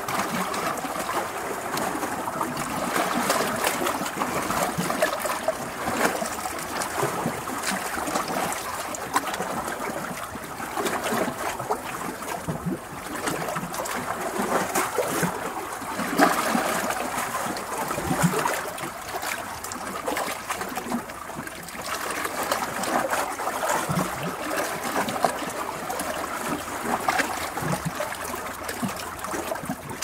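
Sea waves breaking against rocks: a continuous wash and splash of water that swells and eases every few seconds.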